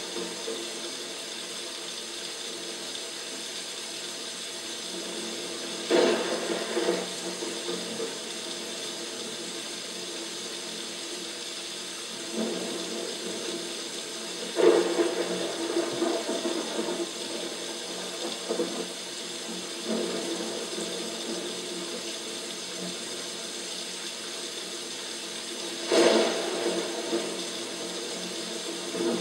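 Artificial rain from a paludarium's rain system pattering steadily into the tank, a continuous splashing hiss. About five times the sound swells suddenly louder and fades over a second or two.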